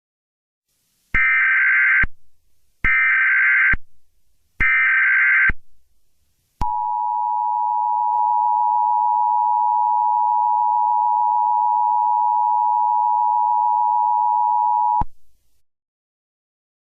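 Emergency Alert System tones: three short bursts of the warbling SAME digital header, then the steady two-tone EAS attention signal held for about eight seconds before cutting off. This sequence marks the start of a new emergency alert.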